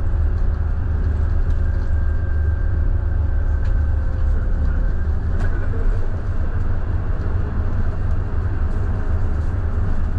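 Scania K320IB bus on the move: a steady, deep engine drone mixed with road noise, with light rattles and ticks on top.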